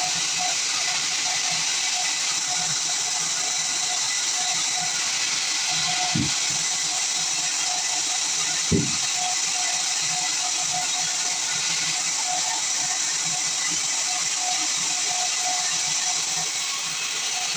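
Band sawmill cutting through pine wood: a steady hissing saw noise, with two brief low thumps about six and nine seconds in.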